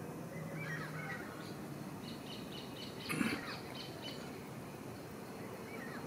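Outdoor ambience with small birds chirping in short, repeated high notes, and one brief, louder noisy sound a little after three seconds in.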